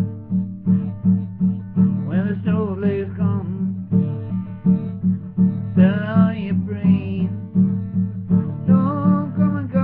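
Acoustic guitar strummed in a steady rhythm, about two strums a second, with a man's voice singing short phrases over it about two, six and nine seconds in.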